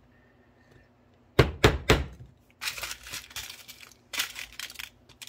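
A small tack hammer tapping a brad into a wooden 2x4: three quick, sharp strikes about a second and a half in. Then fingers rummage through a clear plastic box of small nails, a rattling clatter in two short spells.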